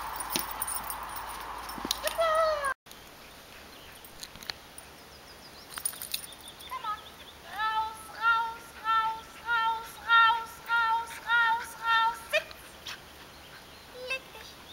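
A dog giving a run of about ten short, high-pitched yips, roughly two a second, lasting about five seconds. Earlier a noisy stretch ends in a single falling whine and breaks off abruptly.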